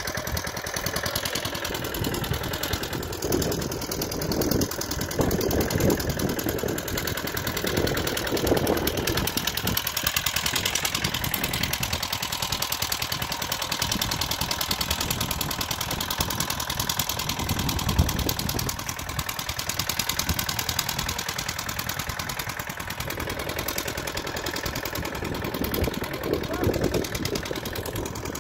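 Engine of a small walk-behind tractor (power tiller) running steadily with an even, rapid chugging as the machine is driven along.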